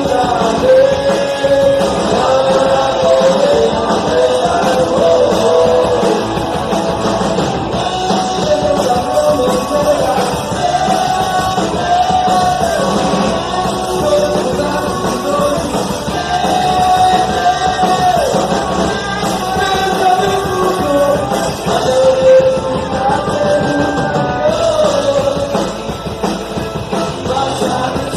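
Punk rock band playing a song, with a voice singing over loud electric guitar.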